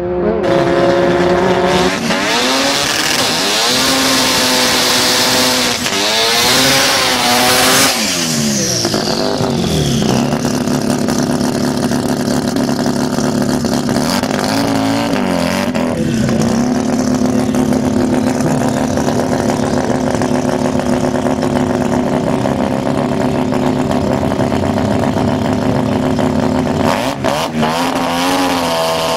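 Rotary (Wankel) car engine being revved hard. The revs rise and fall several times at first, then hold nearly steady at high revs for long stretches with a couple of short dips, and swing up and down again near the end.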